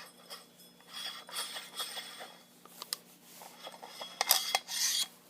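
Faux suppressor of a Walther-made HK MP5 .22LR being twisted loose on the barrel by hand: intermittent scraping and rubbing with a few sharp clicks, loudest near the end.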